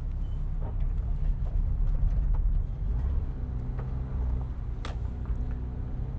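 Porsche 987.1 Cayman S's flat-six engine running steadily at low speed, with a single sharp click about five seconds in.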